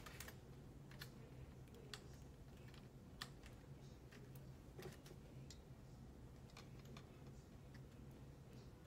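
Faint, scattered light clicks of a transfer tool and needles being moved on a Silver Reed LK150 knitting machine's needle bed while stitches are increased at the edge, over a low steady hum.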